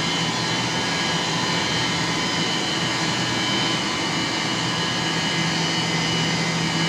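HVAC plant water pumps, condenser water pumps among them, running steadily: a loud, unchanging machine hum with several fixed tones.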